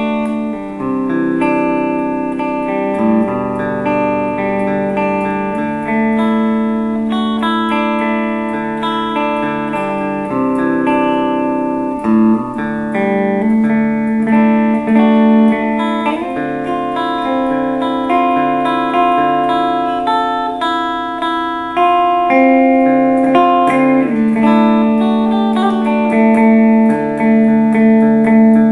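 2008 Epiphone Sheraton II semi-hollow electric guitar played clean through a Fender Blues Junior valve amplifier: ringing chords and melody notes that change every second or two.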